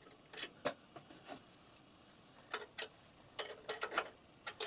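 Small open-ended spanner clicking against a brass union nut as the nut is tightened onto a pipe fitting: short, light metallic clicks at uneven intervals, bunched quickly together a little after halfway.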